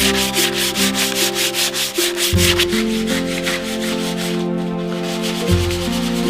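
Wood being sanded by hand in quick back-and-forth strokes, a rapid rhythmic rasping that fades out after about four seconds. Soft background music plays underneath.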